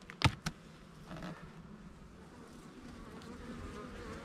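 A couple of sharp knocks near the start as the wooden hive cover is worked loose, then honeybees buzzing in a steady hum that grows a little louder as the lid comes off and the hive lies open.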